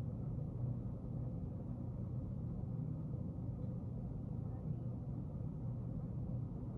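Steady low hum and rumble of office room tone, with no distinct events.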